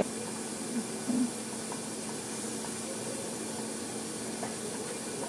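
Steady hiss of background room noise with a faint hum, and a single brief faint sound about a second in; no speech.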